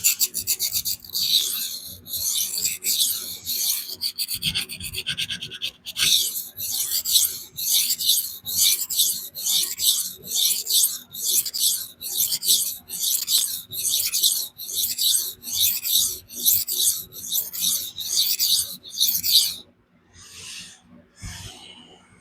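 A Spyderco Magnamax steel blade scraping back and forth on a 400-grit vitrified diamond sharpening stone, a rasping stroke about twice a second, quicker in the first few seconds. The coarse stone is grinding steel off the bevel to take out its convexity. The strokes stop shortly before the end, leaving a few lighter passes.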